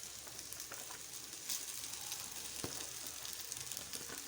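Pan of stir-fried vegetables, egg and chicken 65 in sauce sizzling steadily on low heat, with a few faint clicks.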